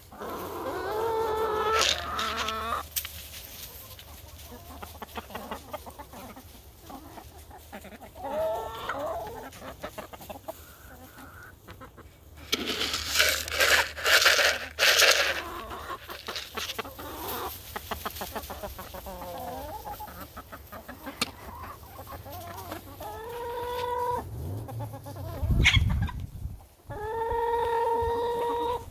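Hens clucking, with several drawn-out calls from the flock as the treat is handed out. About halfway through, grain and pellets rattle as the plastic tub is tipped, and a low thump comes near the end.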